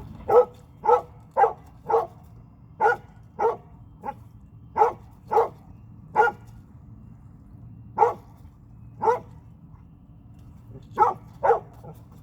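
A dog barking repeatedly, about a dozen short sharp barks in uneven bunches, some in quick pairs, with pauses of a second or two between groups.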